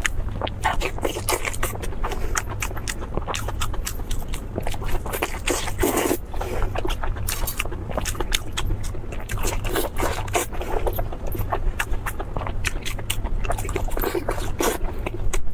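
Close-miked chewing and crunching of crispy food: a dense, irregular run of crackles and clicks over a steady low hum.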